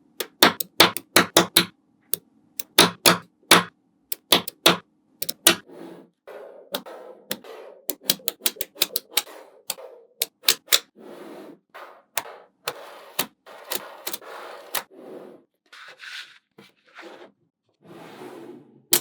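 Magnetic balls clicking as they snap together: rapid, irregular sharp clicks, thickest in the first six seconds. After that the clicks come among softer stretches of rustling noise.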